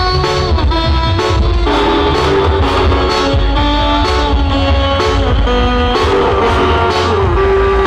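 Loud music with heavy bass, played through a large carnival sound system, with a stepping melodic lead line over it.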